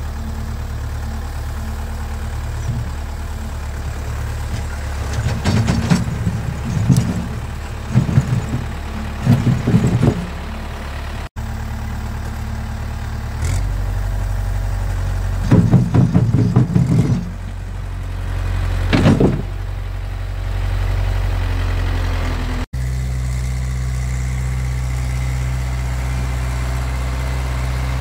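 A 2008 Kubota M5040 50 hp diesel tractor's engine running steadily, while its steel front-loader bucket scrapes and knocks against broken concrete foundation blocks in two spells of clattering, several seconds in and again past the middle.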